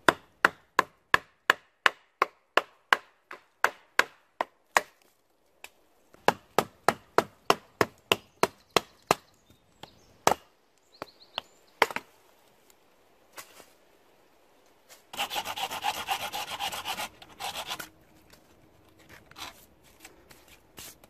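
Large knife being struck into a green yew limb to cut V-notches through it: two runs of sharp woody strikes at about three a second, a brief pause between them, then a few single strikes. Near the end comes a rasping, crackling stretch of about three seconds.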